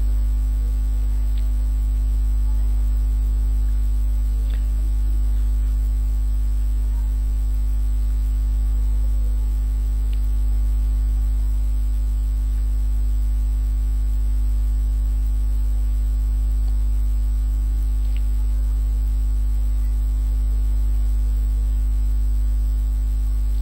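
Steady low electrical mains hum with its overtones, the recording's constant background, broken only by a few faint mouse clicks.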